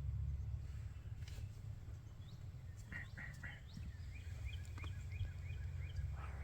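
A bird calling: three short notes about three seconds in, then a run of about six quick rising notes, over a steady low rumble.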